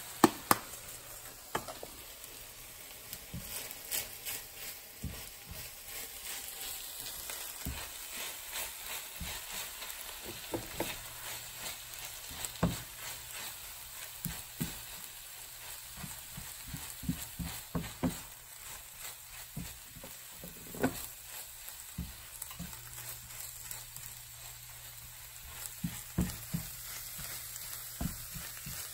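Rice, kimchi and squid sizzling in a hot nonstick frying pan while a silicone spatula stirs and scrapes through them, with irregular soft knocks of the spatula against the pan.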